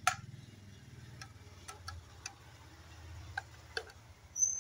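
Light, irregular plastic clicks from a toy fishing rod and reel being handled: one sharper click at the start, then a few faint ticks spaced unevenly, over a faint low hum.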